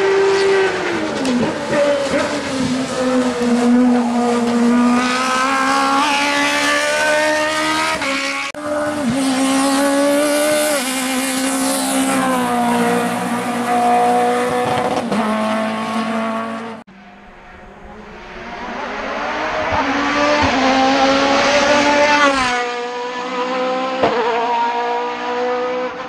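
Race car engines at full throttle, revving hard up through the gears with the pitch dropping at each gearchange, in three passes cut together. First an open-cockpit sports prototype, then a first-generation Renault Clio race car, then a third car that grows louder as it approaches and passes, then fades.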